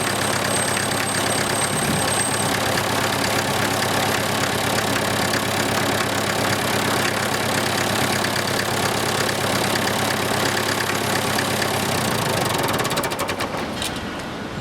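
The 1953 International 275 tractor's engine runs steadily with a tinkling rattle that follows engine speed. Near the end it is shut off, and its strokes slow and die away.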